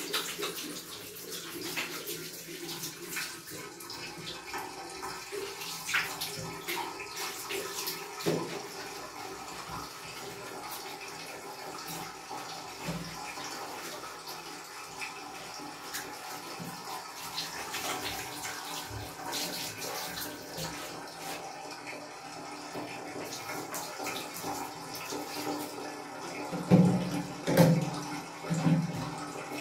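Water running and splashing in a bathtub: a steady hiss with scattered small drips and clicks, and a few louder bumps near the end.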